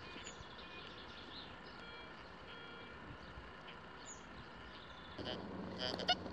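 Faint outdoor ambience with a few small bird chirps. About five seconds in, a low steady hum comes in.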